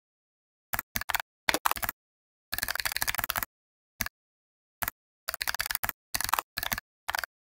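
Computer keyboard typing in short bursts of quick keystrokes, with dead silence between the bursts. There is a fast run of typing around the middle, a couple of single taps after it, then steady typing again near the end.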